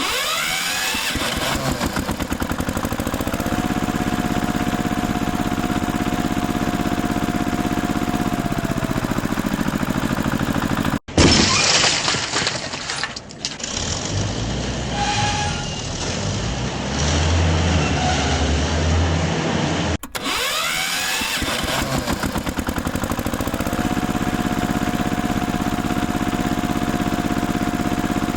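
A heavy machine's engine running, with a steady whine that rises in pitch after a few seconds and drops away again. Midway a different stretch cuts in with a sudden bang and uneven engine and machinery noise, and then the first stretch repeats.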